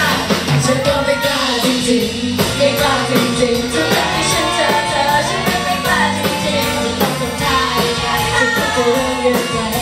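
A woman singing live into a microphone over a rock-pop band, with guitar and drums keeping a steady beat.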